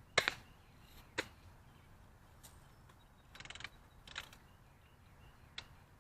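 Daisy Red Ryder lever-action BB gun being cocked and fired: a sharp double click near the start, single clicks about a second in, about four seconds in and near the end, and a short rasping ratchet at about three and a half seconds.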